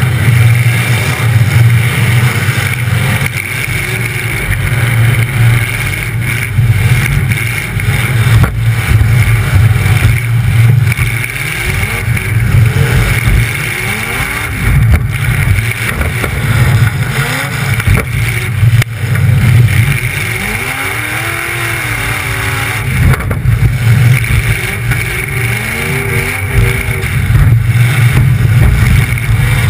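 Demolition derby car's engine running loud through open exhaust stacks, heard up close, revving up and down as the car manoeuvres. A few sharp knocks stand out above the engine.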